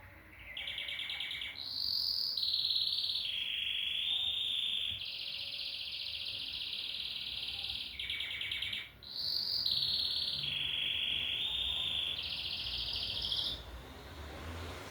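Domestic canary singing: two long song phrases, each a chain of rapid rolling trills that jump from one pitch to another, with a brief pause between them about nine seconds in.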